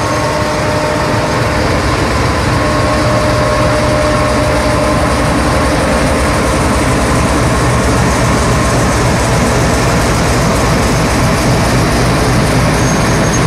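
Pakistan Railways GEU-40 diesel-electric locomotive pulling a passenger train out of the station, its engine running loud and steady as it passes close by. A heavier low rumble builds after the first couple of seconds.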